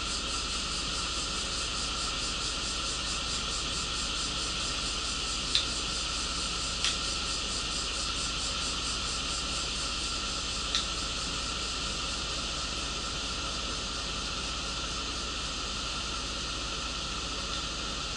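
Steady hissing cabin noise inside a standing city bus, from the air-conditioning fans and the idling engine, with three brief sharp clicks scattered through it.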